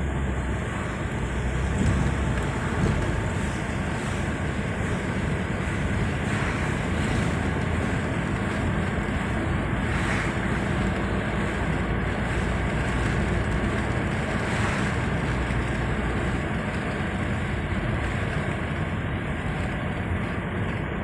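Steady road noise inside a car driving at highway speed: tyre rumble and engine hum through the cabin, with a rush of wind.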